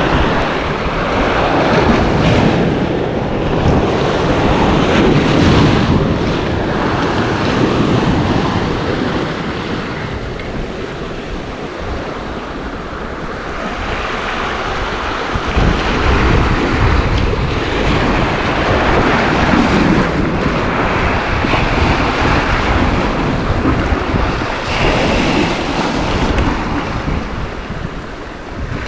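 Wind buffeting the microphone over the wash of sea waves: a loud, rough rumble that swells and eases.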